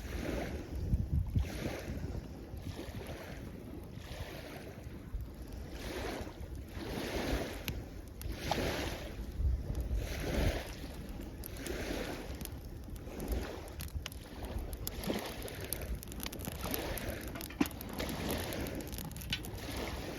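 Small waves washing in at the shoreline, each swelling and falling away about every one and a half to two seconds. Wind rumbles on the microphone underneath.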